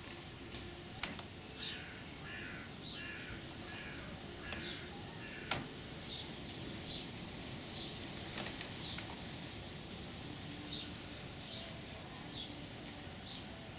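Birds calling: many short, high chirps repeated throughout over a steady background hiss, with a sharp click about five and a half seconds in.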